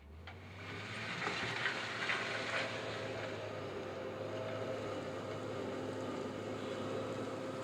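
JCB 426ZX wheel loader's diesel engine running, coming up in level during the first second and then holding steady.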